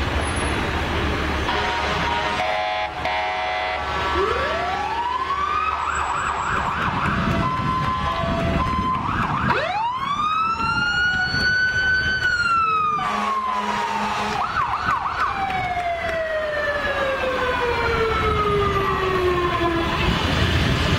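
Emergency sirens of fire trucks and an ambulance passing: wails that rise and fall, with short rapid warbles between them. About halfway through one wail rises steeply, holds, then falls slowly until near the end, over a steady low rumble of truck engines.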